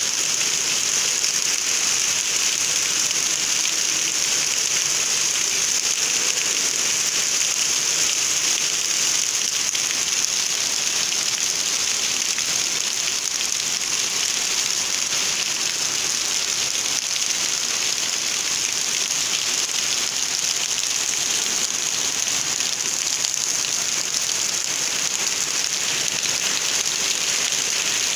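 Heavy rain pouring down steadily: an even, unbroken hiss of drops on the ground.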